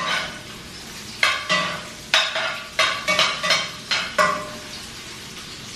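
Metal utensil knocking and scraping against a frying pan about ten times in quick succession, each stroke ringing briefly, over a faint steady sizzle of food frying in the pan.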